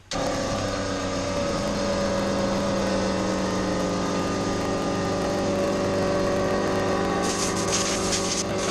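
Electric power sander switching on abruptly and running steadily with a motor hum and hiss. From about seven seconds in, a harsher hiss comes and goes in irregular bursts.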